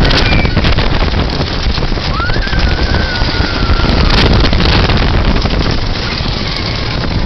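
Wooden roller coaster train running fast along its track: a steady rattling rumble with wind rushing over the microphone. About two seconds in, a rider lets out a long, wavering scream lasting a couple of seconds.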